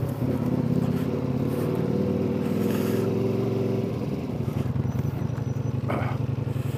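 Motorcycle engine running steadily while being ridden at low speed, its note dropping slightly about four seconds in.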